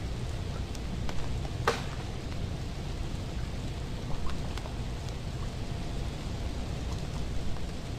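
Freezing rain pattering steadily over a low rumble, with scattered small ticks and one sharper tick nearly two seconds in.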